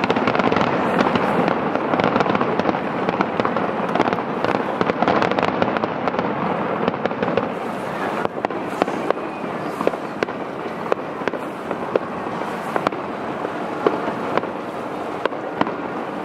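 Aerial firework shells bursting in rapid succession: a dense crackle of pops and sharp bangs, busiest and loudest in the first half.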